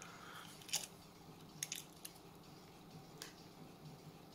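Faint handling noise from a small diecast toy car being turned over in the hands: a few soft clicks over low room tone.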